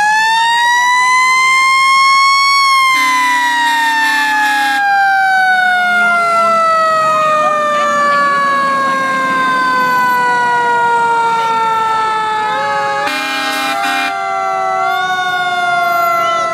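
Fire engine siren rising to its peak about two and a half seconds in, then slowly winding down in a long falling wail. A horn blasts for about two seconds around three seconds in, and again in two short blasts about thirteen seconds in.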